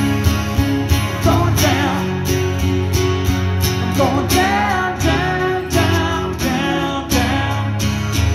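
Acoustic guitar strummed in a steady rhythm with a man singing over it in two phrases, amplified through a small PA.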